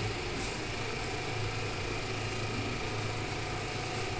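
A steady low mechanical hum with a light hiss, even in level.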